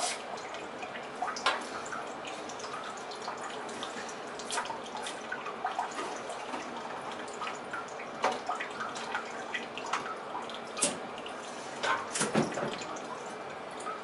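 Front cover of a Navien tankless water heater being pried off by hand. Scattered light clicks, taps and scrapes sound over a steady faint hiss, with the sharpest knocks coming in a cluster near the end.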